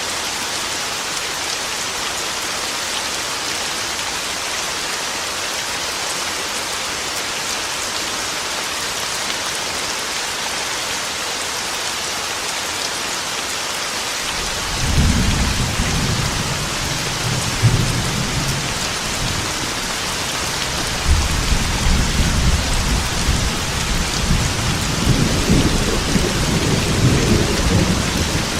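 Heavy rain pouring steadily on a metal roof. About halfway through, thunder starts rumbling, and it rolls again more heavily through the last third.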